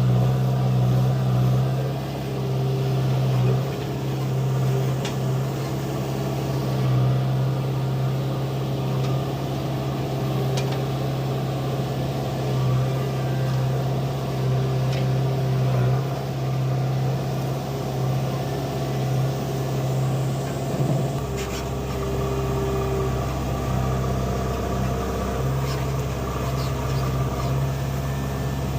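Diesel engine of a JCB 3DX backhoe loader running steadily, with a few faint knocks. A deeper rumble joins in about three-quarters of the way through.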